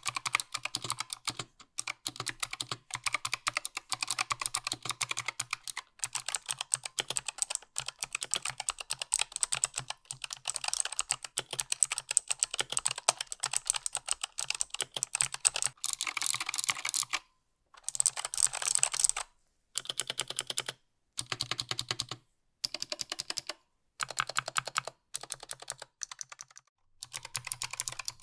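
Typing on a Razer Huntsman Mini's optical key switches: a rapid, continuous run of keystrokes, then bursts of typing broken by short pauses from about halfway through.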